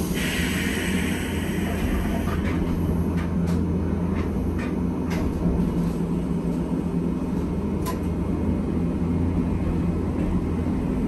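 Hankai Tramway streetcar running on its rails, heard from inside the car: a steady low hum and rumble, with a burst of hiss at the start and scattered sharp clicks.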